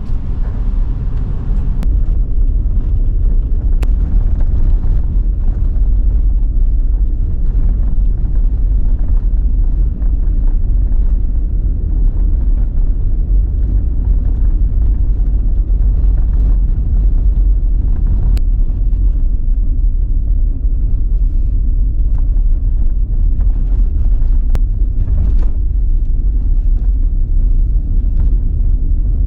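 Steady low rumble of road and engine noise heard from inside a moving vehicle, with a few faint clicks.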